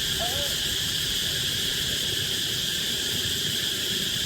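Steady high-pitched insect chorus, with two short gliding chirps right at the start.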